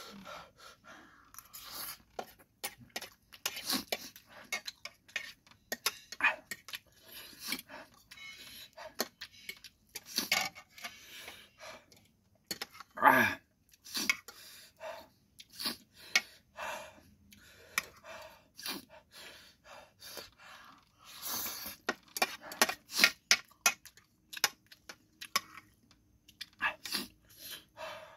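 Metal fork and spoon clinking and scraping on a ceramic plate, with close-up chewing of noodles, in irregular short bursts. One louder brief sound with falling pitch comes about halfway through.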